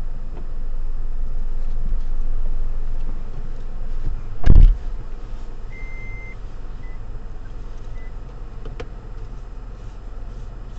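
Inside a stationary car: a steady low engine hum, a loud thump about four and a half seconds in, then a short electronic beep a second later followed by two fainter blips.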